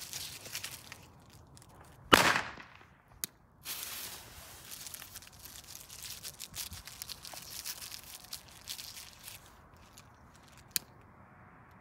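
A single firecracker bang about two seconds in, with a short echoing tail. Faint rustling and a couple of small clicks follow.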